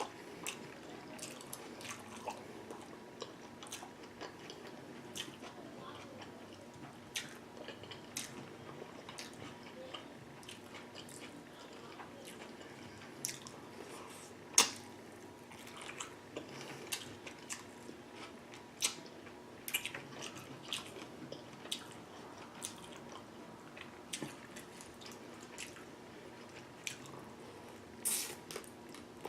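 Close-miked wet eating sounds from a seafood boil mukbang: lip smacking, chewing and sucking on sauce-coated food in irregular clicks, with one sharper smack about halfway through and a longer messy burst near the end.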